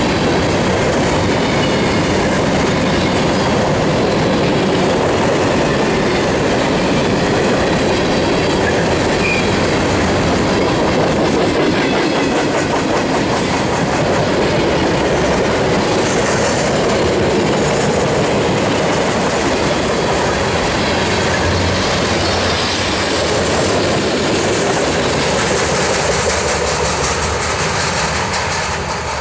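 Freight train cars rolling past, steel wheels clicking over the rail joints in a steady, loud rumble that fades near the end.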